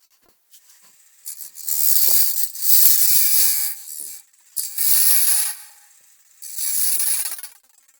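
Sandpaper worked against a turned wooden piece in four passes, each a hiss lasting about a second with short pauses between.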